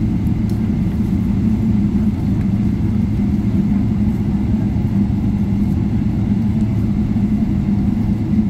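Steady low rumble and hum inside the cabin of a Boeing 777 taxiing, its engines at taxi power.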